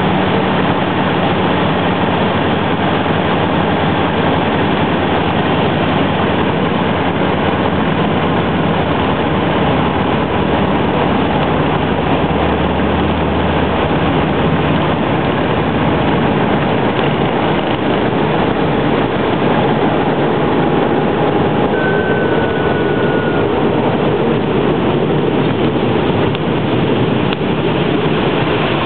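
Loud, steady engine and propeller noise of a de Havilland Beaver floatplane, heard from inside the cabin as it lands and taxis on the water.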